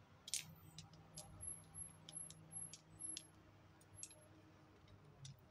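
Faint, irregular clicks and light tinkles of a beaded costume-jewellery necklace, acrylic beads and metal findings knocking together as it is untangled by hand. About a dozen small ticks are spread over the first four seconds.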